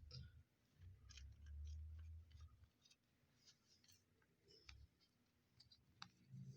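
Near silence with faint, scattered light clicks of trading cards being handled.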